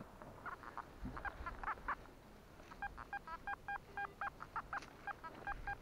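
Metal detector beeping as its coil is swept over the ground: a few scattered chirps, then a run of short beeps at about four a second through the second half. The beeps are signals from the scattered foil littering the spot.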